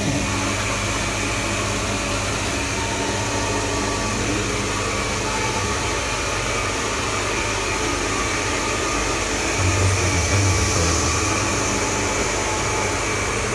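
Xiaomi robot vacuum cleaner running, a steady fan and motor whir with a thin whine over it. The low hum swells briefly about ten seconds in, and the sound cuts off abruptly at the end.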